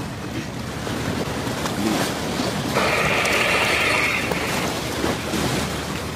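Surf washing over a rocky shore with wind buffeting the microphone. A louder hissing rush comes about three seconds in and lasts about a second and a half.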